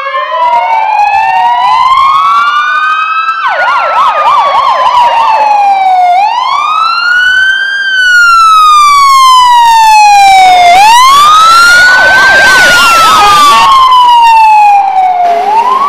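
Sirens of approaching fire engines: at least two overlapping slow wails, each rising and then falling over a few seconds. Twice, one of them switches briefly to a fast yelp. They grow louder about halfway through and drop back just before the end.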